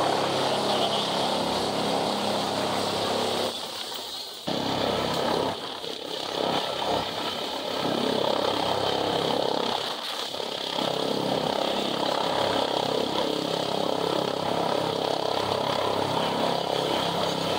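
Rescue helicopter hovering, its rotor and turbine running steadily. The sound drops away briefly about four seconds in, then returns at full strength.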